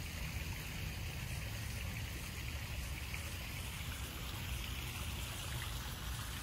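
Steady trickling and splashing of running water from a garden koi pond, with a low rumble underneath.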